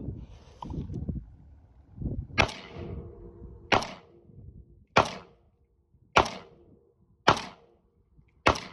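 Century Arms VSKA 7.62×39 semi-automatic AK rifle fired six times in slow succession, about one shot every 1.2 seconds, each a sharp crack with a short echo. A low rumble runs under the first couple of seconds.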